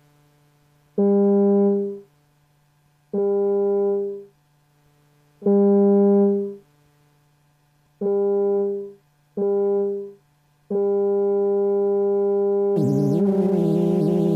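Moog Mother-32 synthesizer sounding the same note six times: five short notes about a second long each, then a held one. About two seconds before the end, the 2hp Delay's repeats pile onto the held note as its delay time is changed, turning it into a wavering, warbling wash with hiss.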